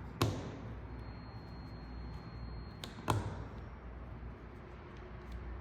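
Two sharp knocks with a short ring, about three seconds apart, as metal parts of a soft-serve machine's front door are handled and set down during disassembly, with a steady low hum underneath.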